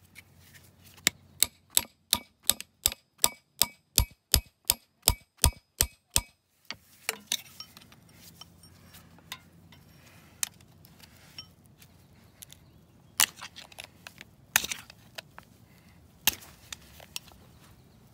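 Hammer tapping a punch against the old front axle knuckle seal of a Kubota L3830 to collapse it for removal: a steady run of about sixteen sharp metal-on-metal strikes, about three a second, that stops about six seconds in. After that come scattered light scrapes and clicks, with a few single louder taps as the tool is worked around the seal.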